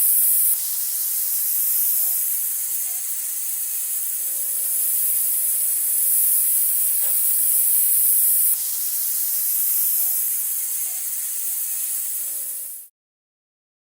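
Steady, high-pitched spraying hiss that jumps in level twice and cuts off abruptly near the end.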